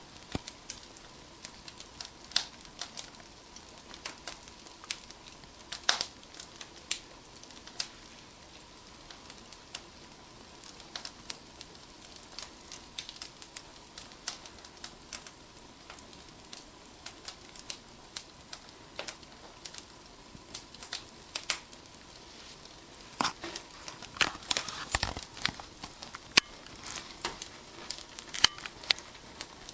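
Wood fire crackling in an open hearth: irregular sharp pops and snaps over a low hiss, coming thicker and louder in the last few seconds.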